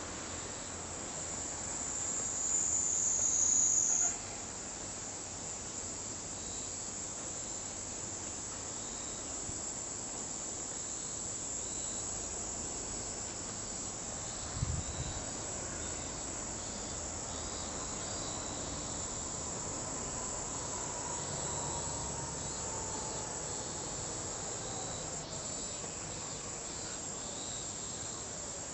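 Kaempfer cicadas (niiniizemi) shrilling in a steady, high, continuous buzz. A louder one close by cuts off abruptly about four seconds in. A brief low thump comes near the middle.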